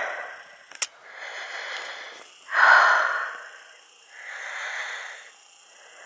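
A person breathing close to the microphone: three audible breaths, the middle one loudest, with a short click a little under a second in.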